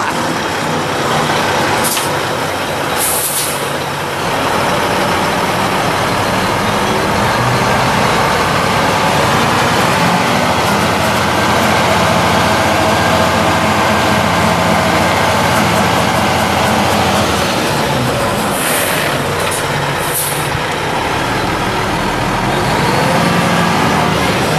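Mack E7 12-litre inline-six turbo diesel of a Mack RD690S mixer truck running as the truck drives slowly, its engine note rising and falling. Short air-brake hisses come twice near the start and again about three-quarters of the way through.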